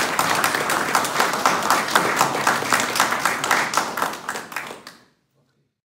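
Audience applauding, many hands clapping together; the applause dies away and stops about five seconds in.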